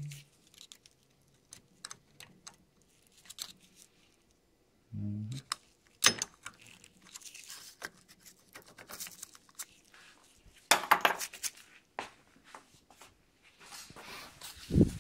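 Small metal clicks and clinks of a screwdriver prying and scraping at the metal parts of a NuVinci CVT bicycle hub, coming in scattered single knocks with a quick flurry of them past the middle. A heavy thump near the end.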